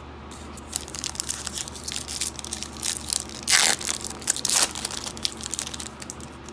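Foil wrapper of a baseball card pack crinkling and being torn open, with a louder rip about three and a half seconds in.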